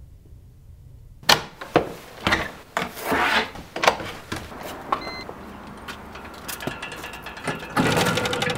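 A door handle and latch worked with a series of sharp clicks and knocks, starting about a second in, as a door is opened. Near the end a metal full-height turnstile turns with a dense, fast ratcheting rattle.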